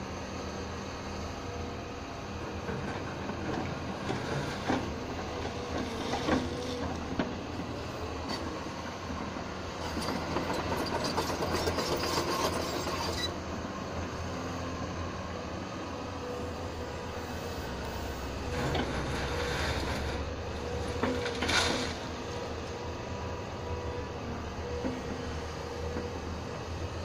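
Caterpillar 323E tracked excavator at work on railway ballast: its diesel engine runs steadily with a hydraulic whine, while the steel bucket scrapes and clatters through the gravel. A few sharp knocks come a few seconds in, and louder stretches of rattling stone come about ten seconds in and again around twenty seconds.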